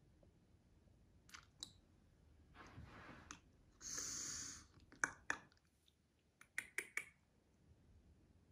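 Shih Tzu puppy moving about in a plush bed: a few soft clicks and rustles, a short hissing rustle about four seconds in, and a cluster of sharper clicks a second or so later, all faint.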